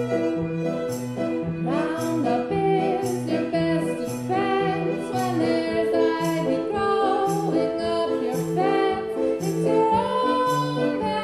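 Live song: a woman singing with a violin playing along over a steady, regular low accompaniment. The voice comes in about two seconds in.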